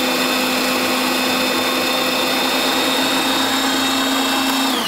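Moulinex Masterchef 370 food processor motor running steadily with a constant whine, its blade churning a thick cod roe and bread paste while olive oil is drizzled in. It is switched off at the very end, and the pitch starts to fall.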